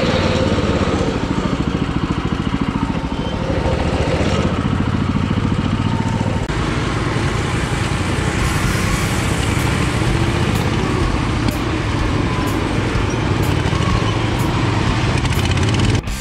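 Riding lawn mower engine running steadily, a loud, rough mechanical drone.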